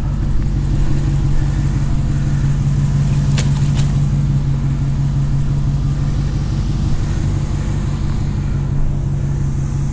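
Truck engine running steadily with a low hum, with a couple of faint clicks about three and a half seconds in.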